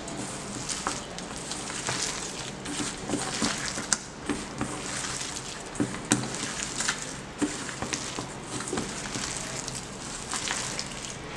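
Sliced onions being mixed by hand with gram flour and a little water into a thick pakoda batter: irregular wet squishing and crackling with many small sharp clicks.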